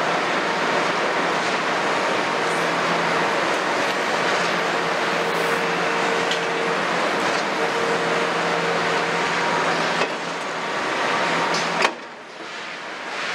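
Heavy diesel engines running steadily: a Kobelco 350 excavator, with its Hino six-cylinder diesel, and a tipper truck maneuvering close by to be loaded. The sound drops abruptly after a click a little before the end.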